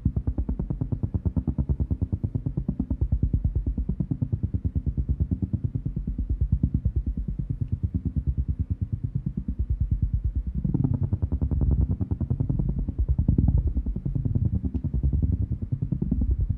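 Designed spaceship engine sound effect: a low, rapidly pulsing engine drone with sweeping, phaser-like shifts in pitch, growing fuller about two-thirds of the way through.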